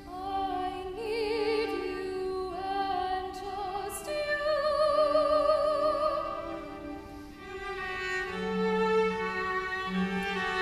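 Woman singing in classical style with wide vibrato over sustained violin, viola and cello; a low held string note enters about eight seconds in.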